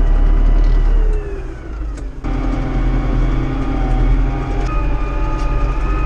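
Tractor diesel engine running, heard from inside the cab. Its pitch falls as the revs drop about a second in, then changes abruptly to a steadier running note.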